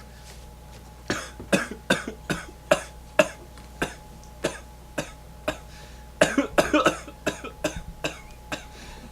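A person coughing over and over in short, sharp coughs, about two a second, with a quicker run of coughs around two-thirds of the way through.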